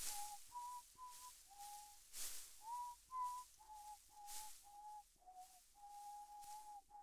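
A person whistling a slow tune: a string of short notes, then one long held note near the end, with breaths audible between phrases.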